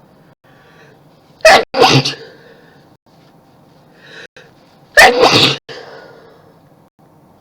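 A woman sneezing twice, loudly, about three and a half seconds apart, each messy sneeze breaking into a quick double burst. A short intake of breath comes just before the second sneeze.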